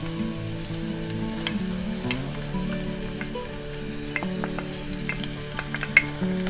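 Minced garlic frying in oil in a non-stick pan, a steady sizzle, with a wooden spatula stirring and clicking against the pan several times in the second half. Soft background music with held notes runs underneath.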